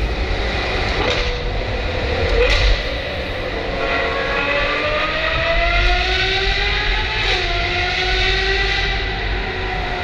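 Car engine accelerating through a road tunnel, its pitch climbing steadily from about four seconds in, dipping briefly near seven seconds and rising again. Underneath is a steady low road rumble echoing off the tunnel walls.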